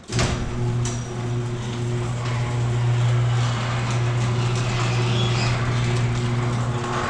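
Electric garage door opener running as a sectional garage door rises: a steady, loud motor hum that starts abruptly, over the rattle of the door moving in its tracks.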